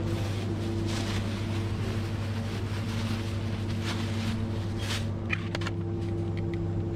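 Steady low machine hum of supermarket refrigerated display cases and ventilation, with a few light plastic clicks near the end as a clear plastic egg carton is handled.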